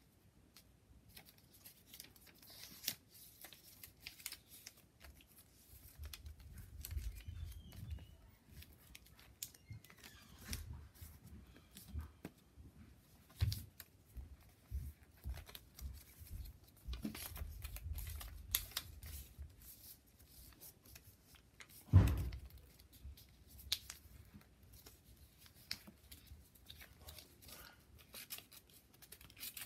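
A sheet of paper being folded and creased by hand against a book, with soft crinkling and rustling and short crackles as the folds are pressed. Low bumps come and go from hands pressing on the book, and one sharp thump comes about two-thirds of the way through.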